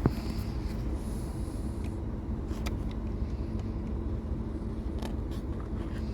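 Steady low rumble in a pickup truck's cab with a faint hum, broken by a few light clicks and taps from screws being taken out of the steering-column cover.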